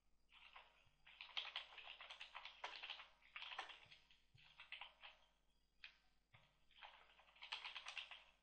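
Faint computer keyboard typing: quick runs of key clicks in several bursts with short pauses between them.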